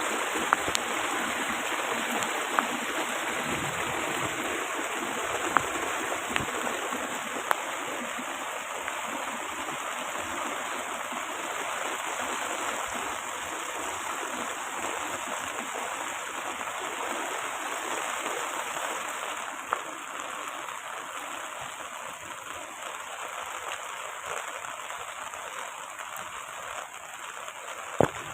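Heavy rain pouring down as a steady wash of noise, slowly easing a little, with a few sharp taps of drops striking a hard surface.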